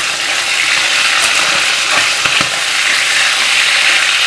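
Marinated chicken legs sizzling steadily as they shallow-fry in oil in a kadhai, with a few light scrapes and taps of a metal spatula turning the pieces about halfway through.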